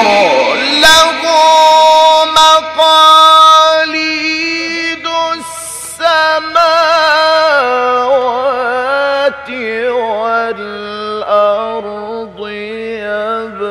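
A male Quran reciter chanting in the melodic mujawwad style. He holds long ornamented notes that waver and slide in pitch, and the line steps down lower about 8 and 10 seconds in.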